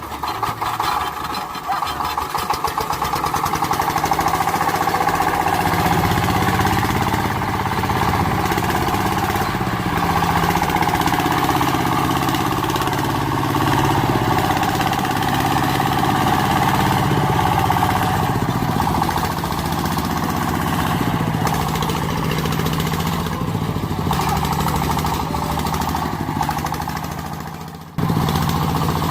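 Mini tractor's engine running steadily with a droning, uneven note. It breaks off briefly near the end and comes straight back.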